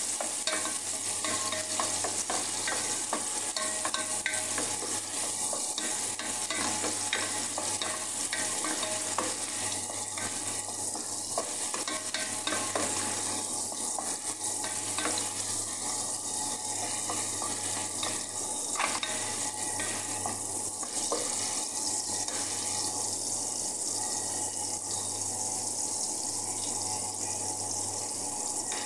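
Chopped onion sizzling as it sautés in oil in an aluminium pot, with a wooden spoon stirring and scraping against the pot in many small clicks.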